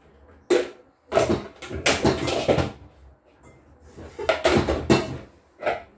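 Kitchen cupboard and dishes being handled: a series of knocks and clattering rattles, densest about two seconds in and again around five seconds.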